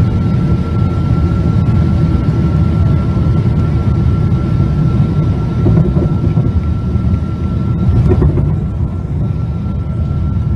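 Loud, steady low rumble inside an airliner cabin beside an engine that has disintegrated in flight, its cowling torn away: the failed engine and the air rushing over its wrecked nacelle, with a thin steady whine above it.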